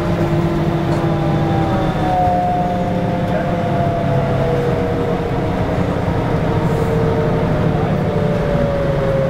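Mercedes-Benz O405GN2 articulated bus under way, heard from inside: steady engine and drivetrain running with a whine that shifts about two seconds in and then slowly falls in pitch.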